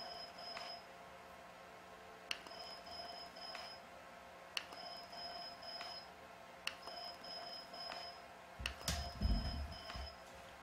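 Jeisys ULGEN HIFU device firing shots into the skin: each shot starts with a sharp click followed by three short high beeps, repeating about every two seconds. A low rumble comes in about nine seconds in.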